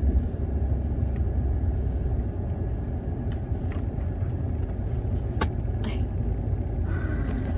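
Car driving, heard from inside the cabin: a steady low rumble of engine and road noise, with a couple of faint clicks.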